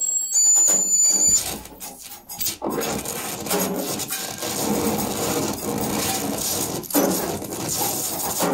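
Free-improvised percussion, with wooden knocks, rubbing and scraping on drums and objects. A thin high tone holds for about the first second and a half, and a dense clattering, scraping texture builds from about two and a half seconds in.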